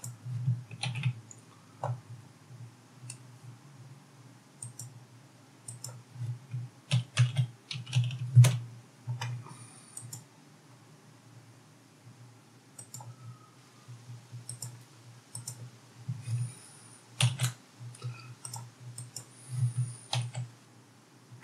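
Computer keyboard keystrokes in short irregular bursts, with quieter gaps between them.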